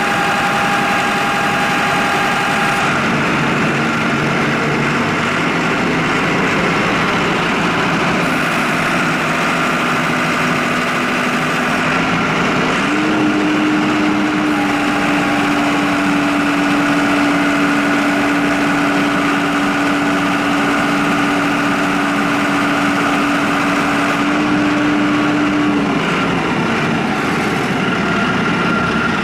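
Mahindra 8560 tractor's diesel engine running steadily while the loader hydraulics are worked for a relief-pressure test. A steady pitched whine steps up slightly a little before halfway and stops near the end.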